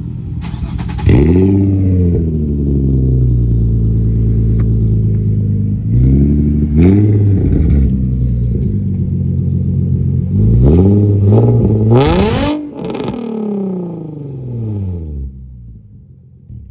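Nissan 350Z's 3.5-litre V6 revved up several times, the pitch rising and falling with each rev, then dropping back and fading out. A brief sharp burst of noise comes at the top of the last rev.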